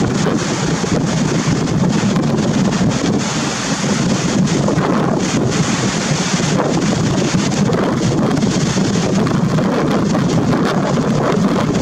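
Strong wind buffeting the microphone in a steady, gusting rumble, over the wash of a choppy, whitecapped sea.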